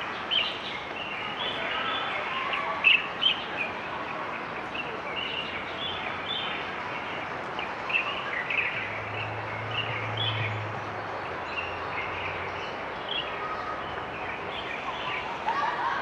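Many small birds chirping, with short sharp calls scattered throughout over a steady outdoor hiss.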